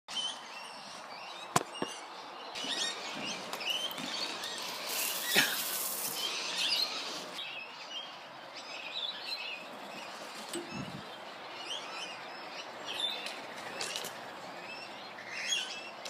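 Wild parrots, rainbow lorikeets among them, chirping and calling in short, scattered bursts throughout. Two sharp knocks stand out in the first six seconds.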